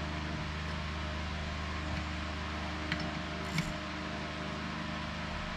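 Steady mechanical hum in the background, with a few faint metallic clicks about two, three and three and a half seconds in from a ratchet being turned on the ring gear bolts of a differential carrier.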